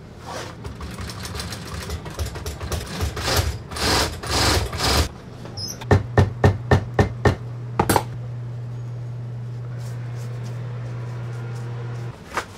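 Bootmaking workshop sounds. A machine motor hums steadily under a stretch of irregular scraping and knocking, followed by a run of about eight quick, even taps. The hum cuts off near the end.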